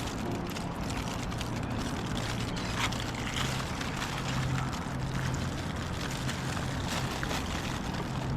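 An engine running steadily at an even speed: a constant low hum under a wash of noise.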